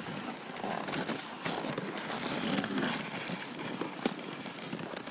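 Dog sled moving along a snowy trail behind a running husky team: a steady hiss with crackling from the runners and paws on the snow, and a sharper knock about four seconds in.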